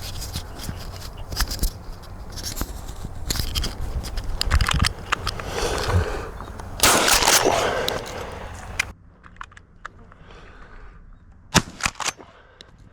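Shotgun shots over wind noise and rustling on the microphone; the sharpest, loudest report comes near the end, followed by a couple of smaller cracks.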